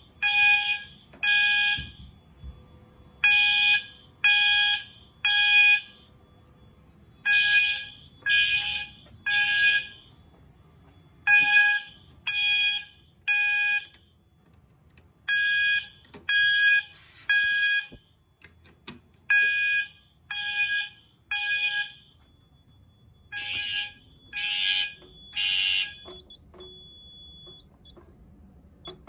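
Fire alarm horn, a System Sensor multi-alert horn set to its 800 Hz tone, sounding the temporal-three evacuation pattern: three steady beeps of about half a second, a pause, then three more, repeating about every four seconds, after canned smoke set off a smoke detector. The beeping stops near the end.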